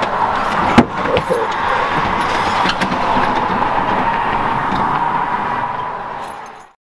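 Steady outdoor background noise with a sharp click about a second in and a light jingle of keys on a lanyard. It all fades out near the end.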